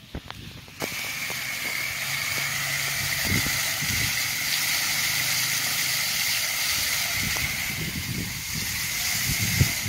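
Water fountain jet spraying up and falling back onto a pond: a steady hissing splash that starts abruptly about a second in.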